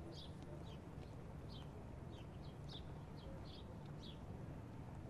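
Faint bird chirps: short, high notes a few times a second, over a low steady hum.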